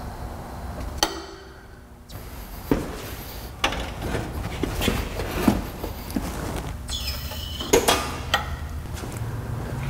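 Irregular metallic clanks and knocks as a rebuilt small-block V8 hanging from an engine hoist is lowered into a pickup's engine bay and guided into place by hand.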